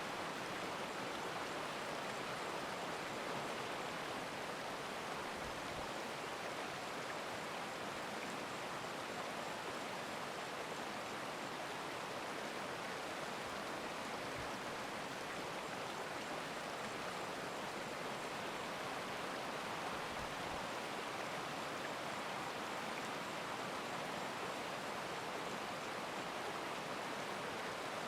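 Stream water rushing steadily, an even, unbroken wash of sound.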